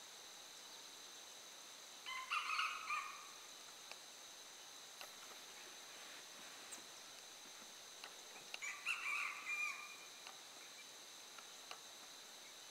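Red junglefowl rooster crowing twice, each crow about a second long and some six seconds apart, over a steady high drone of insects.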